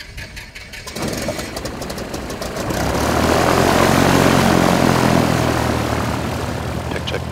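Cessna 172's piston engine and propeller running: uneven rattling for the first second, then swelling into a steady drone about three seconds in, easing slightly near the end.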